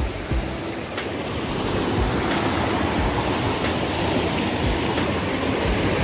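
Mountain stream rushing over rocks in small cascades: a steady, even wash of flowing water.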